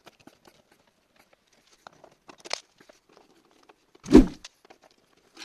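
Screws being taken out of a refrigerator's rear compressor-section cover: faint scattered clicks and scrapes, with one loud thump about four seconds in.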